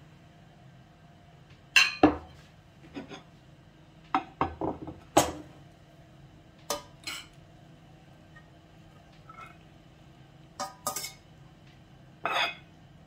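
Ceramic plates knocking down on a wooden board and a metal spaghetti server clinking against a plate as spaghetti is served. These are a dozen or so separate knocks and clinks, with a longer scraping clink near the end.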